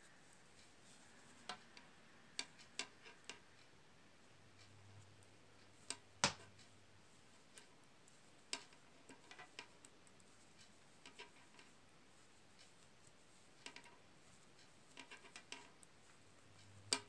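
Metal knitting needles clicking against each other at irregular moments as stitches are worked, sparse small ticks over a quiet room, the loudest about six seconds in.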